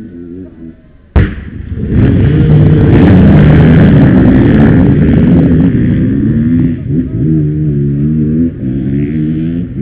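Massed enduro dirt bikes at a race start: many engines revving hard at once as the pack pulls away, with rising and falling engine notes close around. A sudden sharp crack comes about a second in, just before the engines surge.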